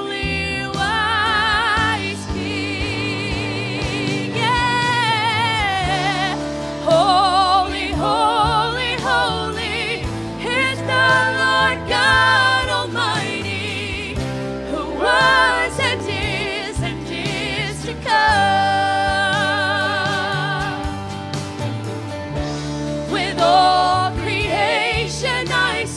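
Live church worship band performing a slow worship song: several singers in harmony, holding notes with wide vibrato, over guitars, bass and drums.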